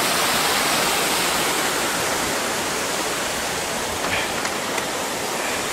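Water pouring through the outlets of a concrete dam and churning below it: a steady rushing of falling water.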